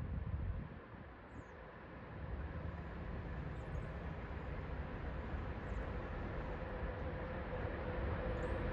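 Low outdoor rumble, swelling gradually from about two seconds in, with a faint steady hum.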